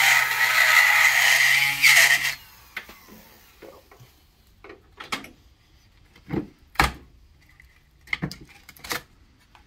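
Die grinder cutting a groove through the old wear ring in a Sea-Doo 140 mm jet pump housing, running steadily with a high whine, then shutting off about two seconds in. A handful of sharp metallic clicks and knocks follow as the cut ring is worked loose.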